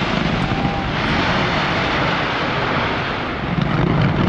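Dense fireworks barrage, many bursts running together into one steady rumble, with a louder stretch of sharper bangs about three and a half seconds in.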